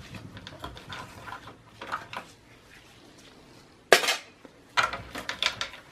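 Light metal clicks and clinks of a flathead screwdriver working a standoff loose in a desktop PC's metal chassis, with one sharp click about four seconds in and a quick run of clicks just after.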